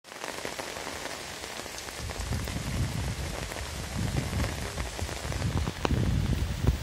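Heavy rain falling on wet ground, puddles and foliage: a steady hiss of drops with scattered sharp, close drips. From about two seconds in, gusty wind rumbles on the microphone.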